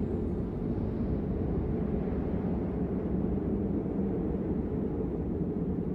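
Deep, steady rumbling drone of an ambient meditation soundtrack, with its sound sitting low and no melody or beat.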